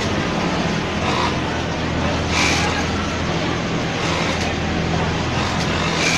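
Steady electric hum of an industrial sewing machine's motor over a dense clatter of workshop machinery, with a few short, brighter bursts of noise.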